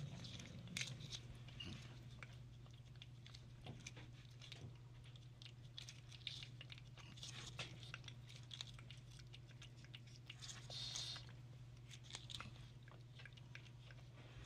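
A cat licking and biting at Churu paste squeezed from a tube held to its mouth: faint, irregular wet clicks and smacks of tongue and teeth, over a steady low hum.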